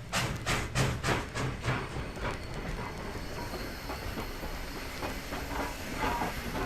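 Steam locomotive exhaust chuffing about three times a second, loud for the first two seconds and then fading into a steady hiss and rumble of the train.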